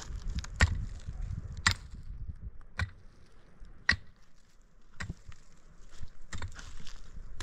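A hand tool striking repeatedly, about once a second, six sharp blows in all.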